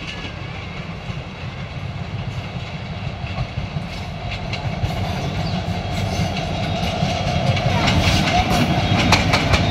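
Diesel-hauled passenger train approaching and passing close by: engine rumble and wheels on the rails, growing steadily louder. In the last couple of seconds, rapid clicking of the wheels over rail joints and points sets in.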